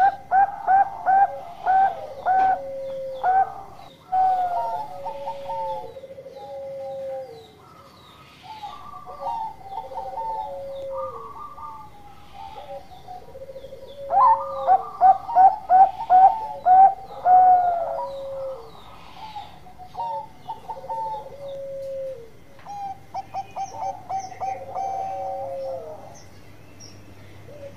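Caged zebra dove (Bangkok-line perkutut) singing its cooing song: runs of quick staccato notes, each closing on a longer, lower falling coo, repeated over and over. The loudest runs come at the start and again about halfway, with quieter cooing between.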